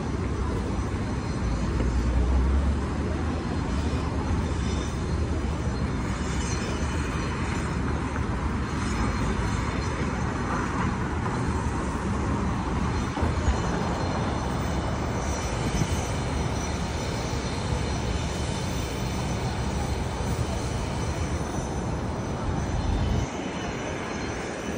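City street traffic noise: a steady wash of passing cars and engines over a low rumble. The rumble swells about two seconds in and falls away just before the end.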